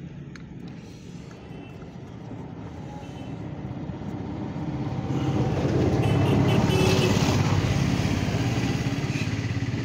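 A motor vehicle's engine passing close by, growing louder to a peak partway through and then slowly fading.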